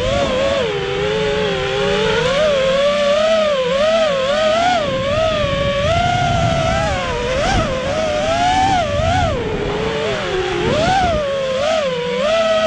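Four Emax 2205 2600 kV brushless motors spinning three-blade props on a racing quadcopter, whining loudly as heard from a camera on the quad. The pitch swoops up and down several times a second with quick throttle changes, dropping low briefly about ten seconds in.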